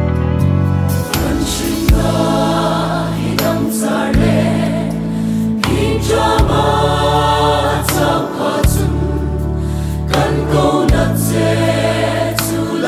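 Choir singing a gospel song over instrumental backing, with a sustained bass and sharp percussion strikes every second or two.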